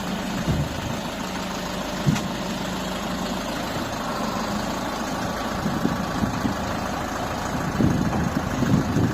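MC504 tractor's engine running slowly at low throttle as it creeps down the step of the unloading ramp, with one sharp knock about two seconds in and a run of low, uneven thuds near the end.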